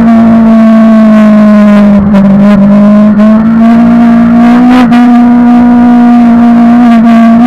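Suzuki GSX-R 750 inline-four sportbike engine at high revs under load. The pitch holds nearly steady, sags a little about two seconds in, then climbs slowly, with a brief blip about five seconds in.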